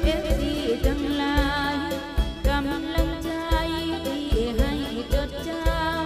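Outro music: a wavering melody with a singing voice over a steady beat of about two thumps a second.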